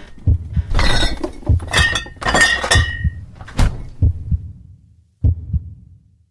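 A quick run of knocks and clattering, with a short ringing squeak about two and a half seconds in. Then come a few single thumps, spaced further apart.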